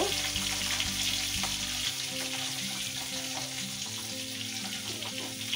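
Hot oil sizzling steadily in a kadai on a gas burner, with a few faint crackles.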